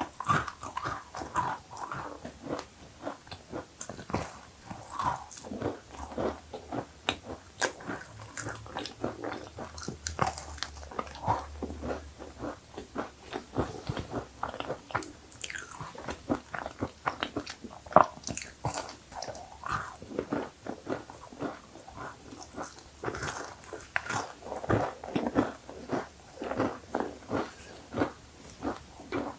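A person biting into and chewing cookies close to the microphone: irregular crunches and crackles of crisp cookie being chewed.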